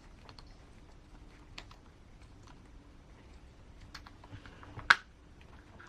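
Small hard clicks and taps of wheel parts and a wheel-nut tool being handled on a 1/10 RC crawler, with one sharp, louder click about five seconds in.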